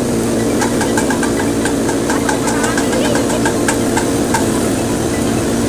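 Cotton candy machine running with a steady drone as its heated head spins out sugar floss, with a run of quick light ticks, about five a second, from about half a second in until about four seconds in.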